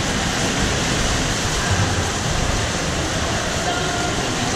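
Steady, echoing indoor swimming-pool hall noise: water splashing and churning as water polo players swim, with faint distant voices.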